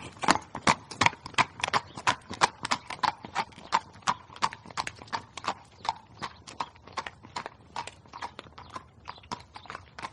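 A horse's hooves clip-clopping in a steady rhythm of about four strikes a second as it passes close by, the steps growing gradually fainter as it moves away.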